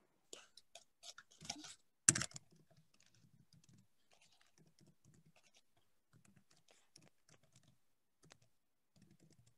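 Faint computer keyboard typing: a quick run of key clicks over the first two seconds, then only a few scattered clicks.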